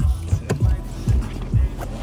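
Hip-hop music with a heavy bass beat, cutting off near the end.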